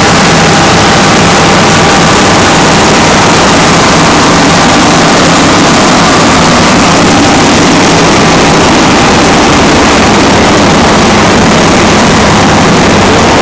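Cummins diesel generator engine running steadily, loud and close to the microphone.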